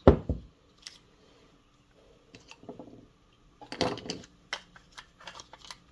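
Small parts and tools being handled on a workbench: a heavy knock at the start, then scattered clicks and light clatter, with a busier bit of rattling about four seconds in.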